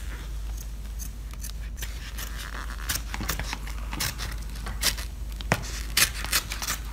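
Peel ply and breather cloth being pulled off a cured fiberglass-epoxy laminate: a run of crackling, tearing snaps as the resin-soaked fabric comes away. It is sparse at first, then thicker and louder from about halfway through.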